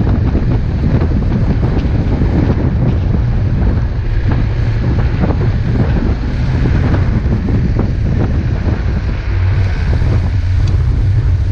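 Loud, steady low rumble of an off-road 4x4 driving through deep snow, with wind buffeting the microphone and scattered knocks. Near the end a hiss comes in as snow sprays against the windscreen.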